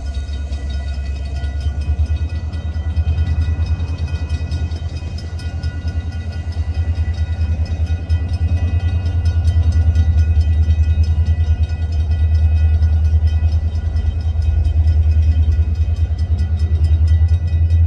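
Escanaba & Lake Superior freight train running, a heavy low rumble with several steady high-pitched tones over it; it grows louder about nine seconds in.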